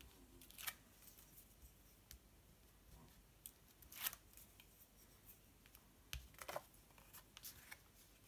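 Faint rustling of paper and cardstock: backing strips peeled off foam adhesive pads and a card panel handled and laid down. There are a few brief brushes, the loudest about four seconds in.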